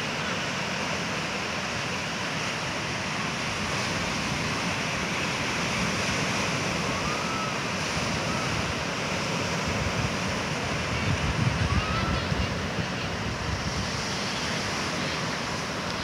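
Ocean surf breaking and washing up a beach in steady wind, with wind buffeting the microphone in gusts about two-thirds of the way through.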